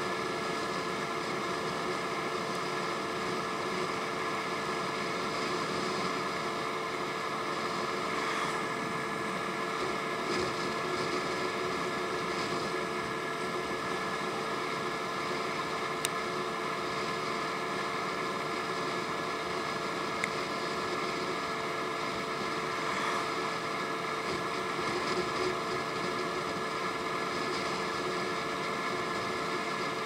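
Honda Ruckus scooter's engine running steadily at cruising speed, under a constant rush of wind and road noise on the microphone. One short sharp tick about halfway through.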